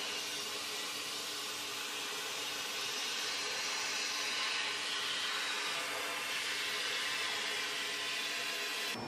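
Compressed-air blast nozzle hissing steadily inside a cabinet as it is played over a 3D-printed metal part, cleaning it after printing. The hiss cuts off abruptly at the very end.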